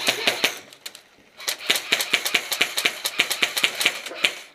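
Airsoft electric rifle firing on full auto: a short burst at the start, then a longer burst of about three seconds, each a fast, even run of sharp clicks.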